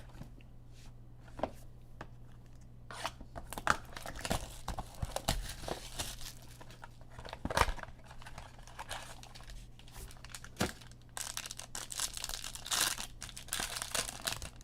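A box of football trading cards being opened by hand: its wrapping and foil packs are torn and crinkled in irregular bursts of tearing and crackling, starting a few seconds in, with a sharp snap about halfway through.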